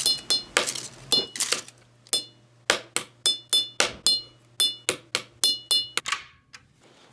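A hard object tapped over and over in a quick, uneven rhythm, many taps leaving a short, high ringing note. The tapping stops about six seconds in.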